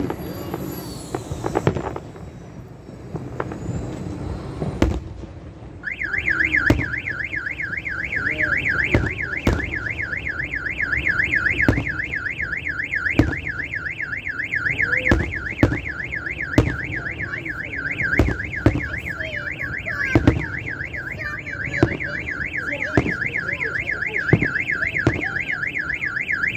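Car alarm sounding a fast up-and-down warble that starts about six seconds in and keeps going, over fireworks bursts banging every second or so.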